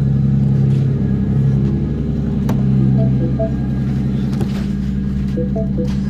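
2012 Mini Cooper's engine idling steadily, running on a jumper that bypasses the faulty starter-signal relay circuit, with a few light clicks over it.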